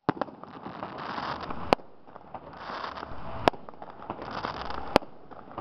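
Fireworks display: four sharp bangs of aerial shells bursting, about one and a half seconds apart, with dense crackling between the bangs.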